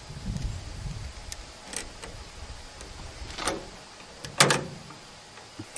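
Screwdriver turning a screw into a stainless steel antenna mount plate, making a few short metallic clicks and squeaks, over a low wind rumble on the microphone.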